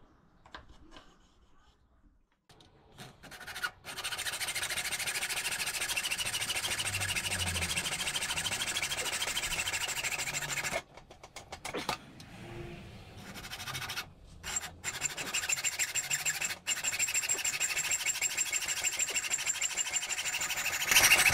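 Hand hacksaw cutting steel angle iron: a steady rasp of quick back-and-forth strokes, starting a few seconds in, in two long spells with a short break between, as the two sides of a slot are cut.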